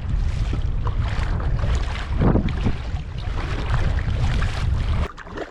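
Wind buffeting the microphone in a heavy low rumble, over irregular splashes of kayak paddle strokes and water against the hull. The wind rumble drops off abruptly about five seconds in.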